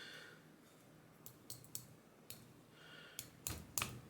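Small, sharp clicks and taps from handling a disassembled lock cylinder and its tools while working at its passive side pins. A few faint clicks come first, then three louder ones near the end.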